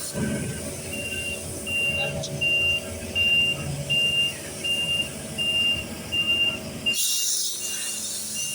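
Heavy construction vehicle's backup alarm beeping at an even pace, about four beeps every three seconds, over the low running of its engine.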